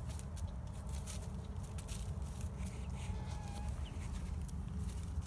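Young Buff and Lavender Orpington chickens clucking softly, with a few faint short calls, over a steady low rumble.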